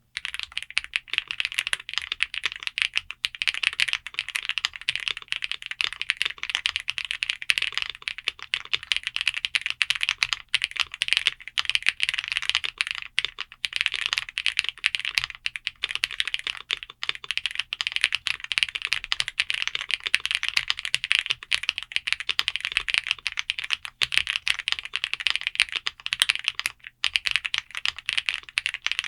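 Continuous fast typing on a GravaStar Mercury K1, a gasket-mounted mechanical keyboard in an aluminium frame with Leobog Graywood V4 linear switches and thick double-shot PBT keycaps. The keystrokes run in a steady, dense stream of clicks.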